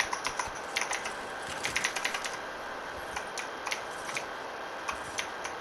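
Computer keyboard keys and mouse buttons clicking irregularly, sometimes in quick little runs.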